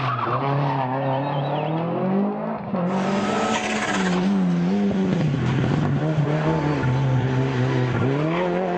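Rally car engine at full effort, its pitch climbing and dropping again and again as the driver accelerates, lifts and shifts gears. There is an abrupt change in the sound about three seconds in.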